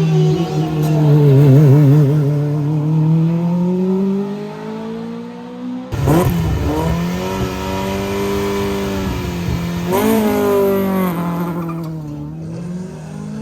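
Race car engines at full throttle passing one after another, the engine note rising and dropping with gear changes. About six seconds in the sound switches abruptly to a second car, which revs up through its gears.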